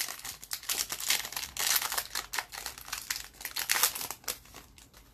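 Hockey card pack wrapper crinkling and crumpling as it is handled, a dense rapid crackle that dies away shortly before the end.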